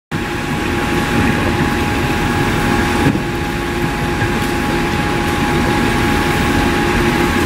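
Heavy diesel construction equipment running steadily at a constant speed, a low rumble with a steady whine over it.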